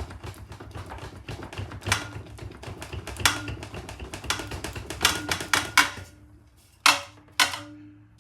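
Metal rattling and clicking fast and unevenly as the exhaust tube of a British Seagull Silver Century outboard is wiggled back and forth in a vise to work it free. Near the end the rattling stops, and three separate sharp metal knocks follow, each ringing briefly.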